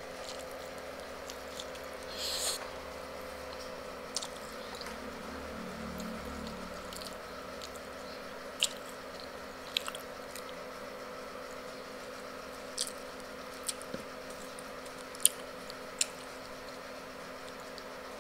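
A person chewing food with their mouth close to the microphone, with scattered wet mouth clicks and smacks over a faint steady hum. Near the end fingers tear at roast chicken.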